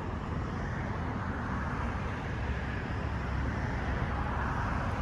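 Steady outdoor noise of road traffic, a low rumble that swells a little about four seconds in as a vehicle passes.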